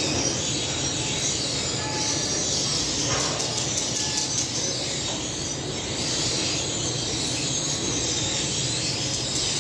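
Steady machinery noise of a commercial flatbread conveyor oven running under its extractor hood: an even hum and hiss, with a few faint clicks about three seconds in.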